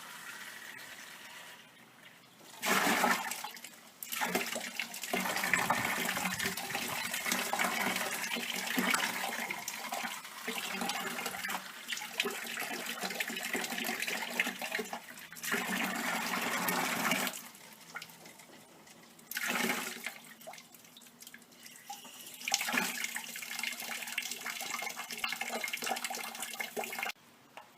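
Water rushing from an open faucet in spells, stopping and starting, as the house plumbing is drained and depressurized with the main shutoff closed.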